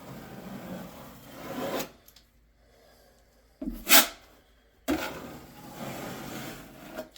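A tool scraping and smearing waterproofing sealant across foam-board seams, in two stretches of rasping strokes. A single sharp clack about halfway through is the loudest sound.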